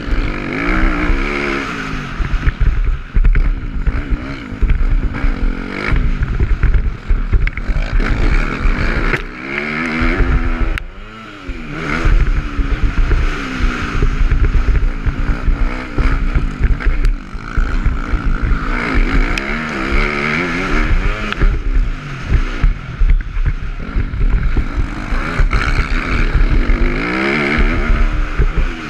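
Dirt bike engine being ridden hard, its pitch rising and falling over and over with throttle and gear changes, with wind rumbling on the microphone. About eleven seconds in the engine note drops away briefly, then picks up again.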